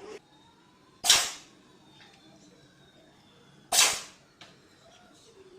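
Cat sneezing twice, two sharp, short bursts a little under three seconds apart.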